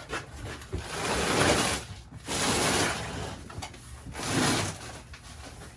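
Three rough scraping sounds, each lasting about a second, of something rubbed or dragged over a gritty surface; the middle one is the loudest.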